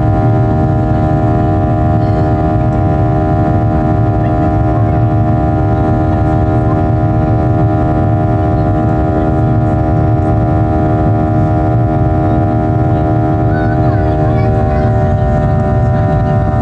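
Boeing 737-800's CFM56-7B24E jet engines at climb power, heard from a window seat over the wing: a steady, loud cabin drone of low rumble and rushing air with a cluster of steady engine tones. The tones shift slightly about fourteen seconds in.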